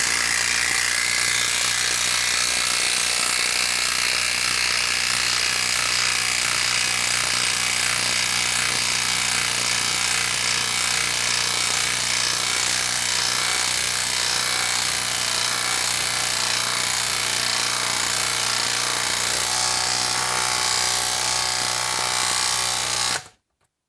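Hilti brushless half-inch impact wrench hammering steadily as it drives a 6-inch TimberLOK screw into a log round. It stops abruptly near the end as the screw head seats.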